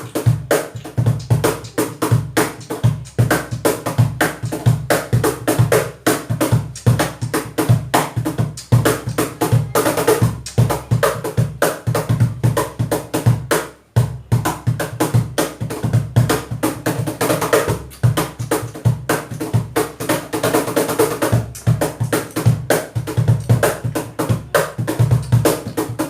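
A wooden cajon with internal snare wires is played by hand in a fast, steady groove of deep bass strokes and snappy, buzzy slaps. It breaks off briefly about halfway through, then the groove picks up again.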